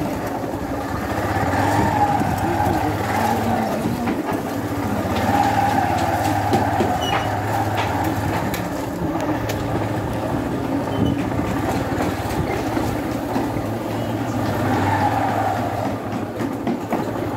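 Motorcycle engine running steadily at low speed, with slight swells in level, as the bike rolls along a rough village lane.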